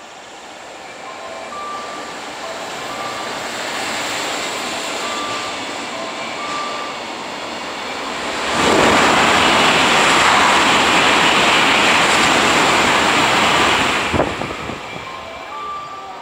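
A short freight train of container wagons runs through a station. The noise builds over the first eight seconds, then comes a loud, steady rush of wagons rolling past for about five seconds. It cuts off suddenly as the last wagon clears, with one sharp click at the end.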